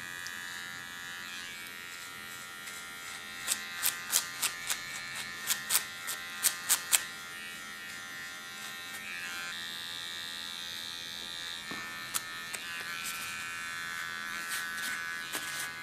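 Small electric hair clipper buzzing steadily as it trims the neckline contour and takes away stray hairs. About three seconds in, a quick run of a dozen or so sharp clicks rises above the buzz for a few seconds.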